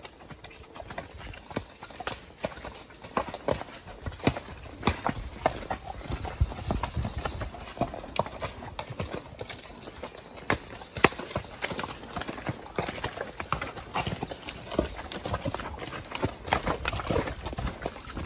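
Horse hooves clopping at a walk on a rocky dirt trail, an uneven run of strikes several times a second.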